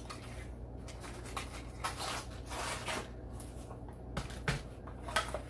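Paper and packaging rustling as the knife's wrapping and instruction papers are handled, with scattered light taps and clicks and a denser rustle about two seconds in.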